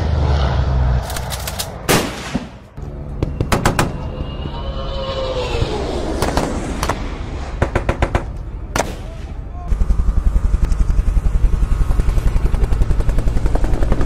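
Machine-gun fire over a steady low drone: short bursts of a few rounds at a time, then a long unbroken burst over the last four seconds. A falling whistle sounds about four seconds in.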